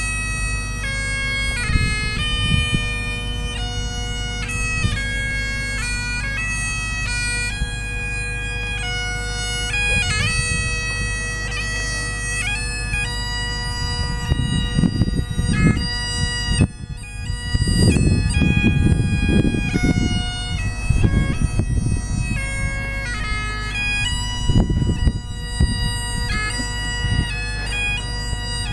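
Great Highland bagpipe playing a tune: held melody notes that change every second or so over steady, unbroken drones. Low rumbling noise comes and goes around the middle.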